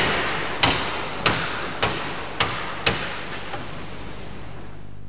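A hammer striking a steel pin punch to drive a pin out of a steel part: about six sharp metallic blows roughly every half second, then a few lighter taps before it stops about four seconds in.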